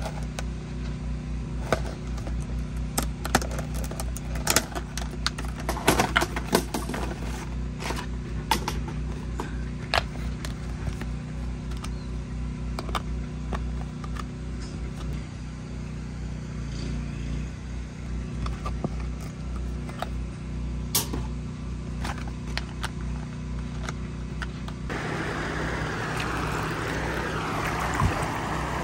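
A vehicle engine running with a steady low hum and rapid even pulsing, with scattered sharp clicks and rattles over the first half. Near the end a rushing, water-like hiss comes in.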